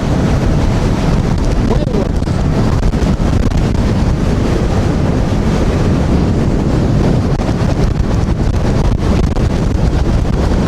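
Wind buffeting a rider's microphone in a loud, steady rush as an electric scooter runs at full speed, about 44 mph, into a strong wind.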